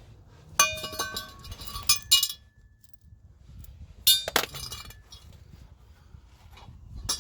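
Metal tools or parts clinking and clattering in four short bursts, some leaving a brief metallic ring.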